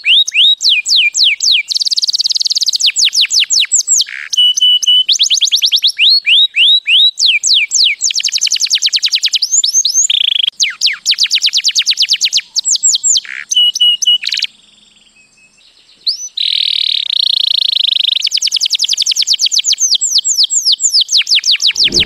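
Recessive white canary singing: fast rolling trills of repeated sweeping notes, with a break of about a second and a half about two-thirds of the way through before the song resumes.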